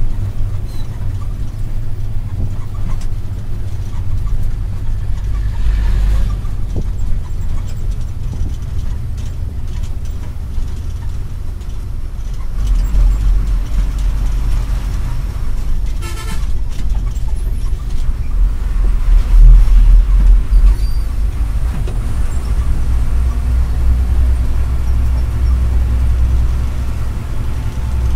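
Ashok Leyland 1613 truck's diesel engine running under way, heard from inside the cab as a low drone that grows louder and falls back as the driver works the throttle. A short horn toot sounds about sixteen seconds in.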